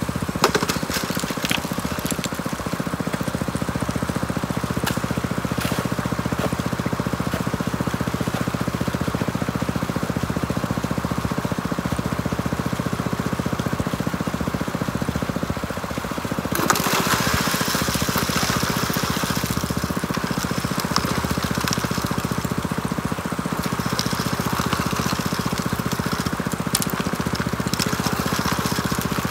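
Small gasoline engine of a water pump running steadily, with water washing through a high banker sluice and scattered small clicks. About two-thirds of the way through, a louder rushing hiss sets in and keeps going.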